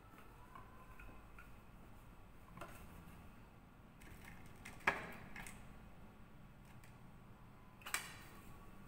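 A few sharp clicks and knocks of plates and fruit being handled on a table, the loudest about five seconds in and another near the end, over quiet room noise.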